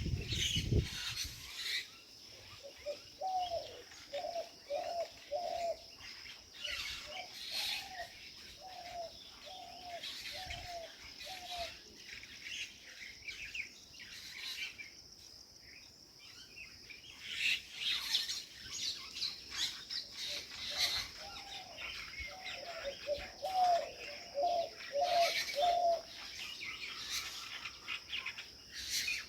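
Birds chirping and calling in the open, with one bird repeating a short, low, arched call about twice a second in runs of several notes, three runs in all. A steady high-pitched drone runs underneath.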